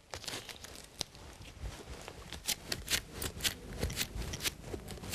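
Masking tape dabbed onto a carpet and pulled away by a rubber-gloved hand to pick up small pieces of broken glass: a faint run of irregular crackles and ticks.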